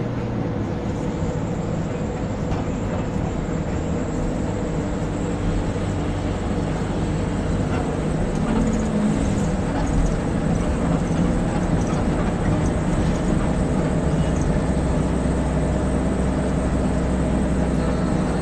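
Steady rumble and low engine hum of a moving vehicle, even in level throughout.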